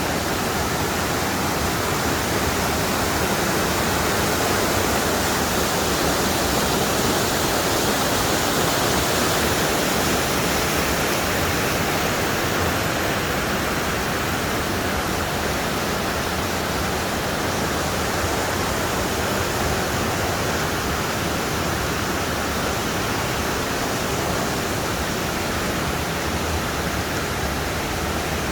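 Steady rushing water, an even noise that holds at one level throughout.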